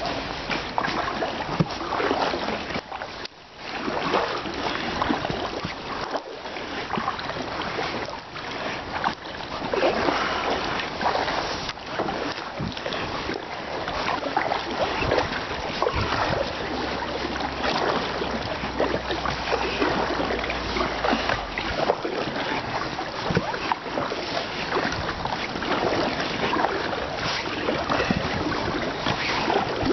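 Kayak paddles splashing into river water stroke after stroke, over a steady rush of wind on the microphone.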